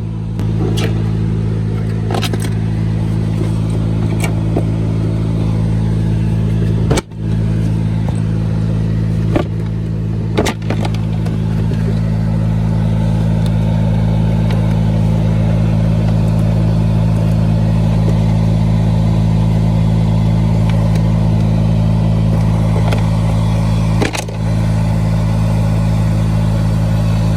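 Honda Civic RS air-conditioning blower fan running turned up to speed, a loud steady hum with a few brief knocks along the way; the mechanic suspects something has fallen inside the blower.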